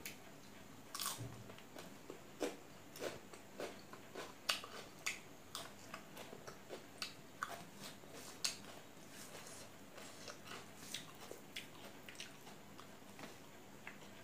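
Close-up chewing and biting of food, an irregular string of short, crisp, wet mouth clicks and crunches, busiest in the first half.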